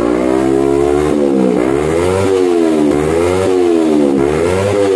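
Kawasaki Ninja 250 twin-cylinder engine revved high through an aftermarket stainless-steel slip-on silencer. The throttle is blipped repeatedly, so the exhaust note rises and falls about four times.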